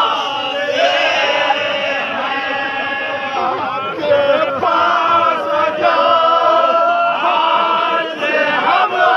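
A group of men chanting a noha, a Muharram lament, together in long sung phrases with short breaks between them.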